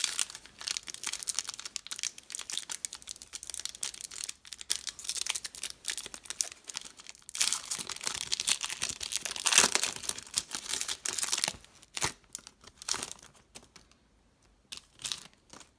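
Foil trading-card pack wrapper being torn open and crinkled, in dense crackling runs that are loudest about halfway through, thinning to a few separate crisp rustles near the end.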